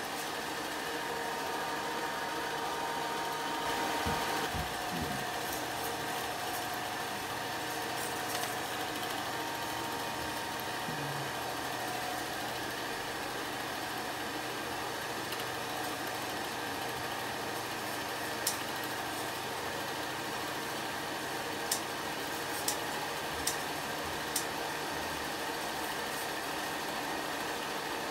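8mm film projector running with a steady mechanical whir as the film loops through it. There are a few low knocks about four seconds in, and several sharp clicks later on.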